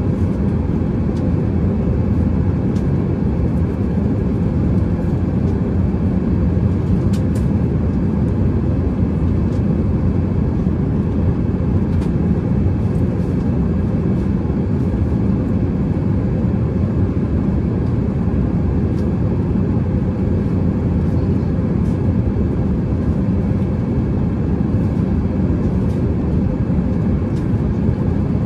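Airbus A380 passenger cabin in cruise: a steady low rumble of airflow and engine noise, with a few faint clicks.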